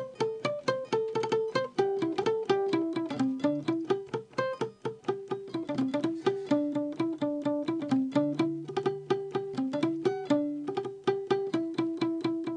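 Yamaha acoustic guitar played fingerstyle: a quick single-note melody picked at about five notes a second, stepping up and down, with a low bass note ringing under it from about eight seconds in.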